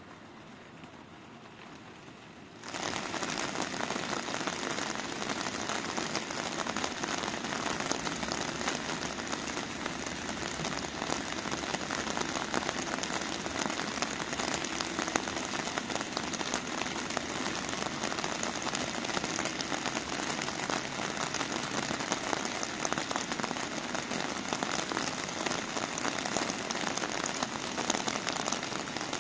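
Heavy rain falling, a dense steady patter of drops that comes in suddenly about three seconds in after a faint hush.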